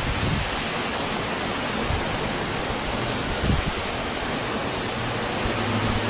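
A steady rushing hiss with a few soft low thuds. A faint low hum comes in about halfway and grows stronger near the end.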